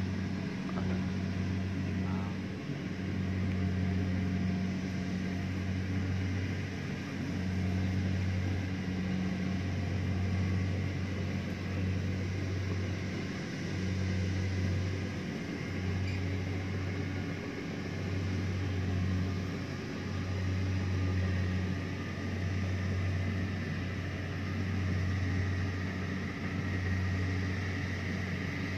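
Rice combine harvester running as it harvests, a steady low engine hum that swells and dips every second or two, with a hiss of threshing machinery over it.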